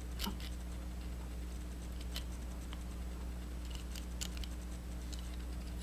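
A few faint, scattered clicks of pliers and the small metal gears of an RC differential being pushed out of the diff case, over a steady low hum.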